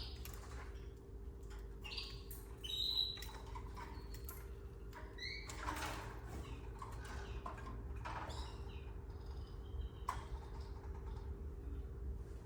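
Canaries at the nest giving short, scattered chirps, with many brief clicks and rustles of the birds moving about. A steady electrical hum runs underneath.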